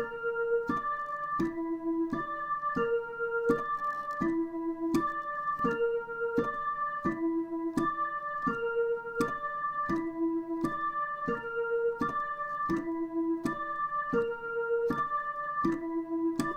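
Dutch ambulance siren melody: clean electronic tones stepping through a broken chord, with no glides between notes. The pattern repeats about every three seconds, alternating a held low note and a held higher note, each surrounded by quicker notes.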